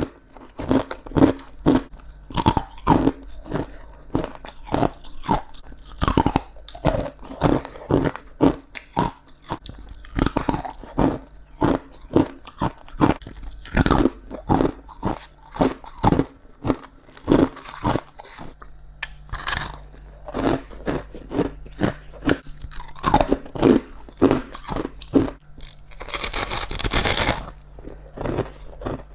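Ice being bitten and chewed close to the microphone: a steady run of sharp crunches, roughly one or two a second, with a longer, hissier crunch near the end.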